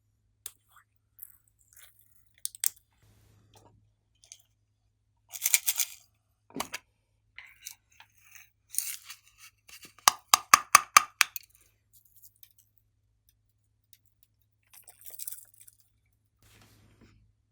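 Glossy slime being handled and mixed: scattered sticky clicks and crackles, with a quick run of about eight sharp pops around ten seconds in.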